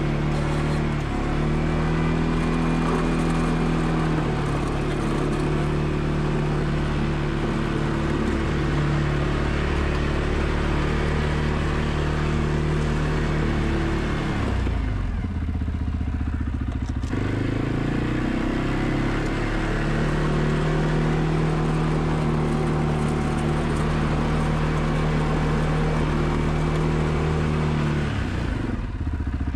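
ATV engine running steadily while plowing snow, its note shifting as it works back and forth. About halfway through it drops to a lower, quieter note for a couple of seconds, then picks back up.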